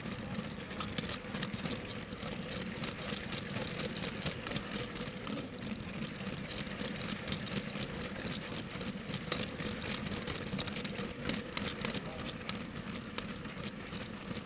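LEGO train running on plastic LEGO track: a steady motor hum under a fast, irregular clatter of small ticks from the wheels and track.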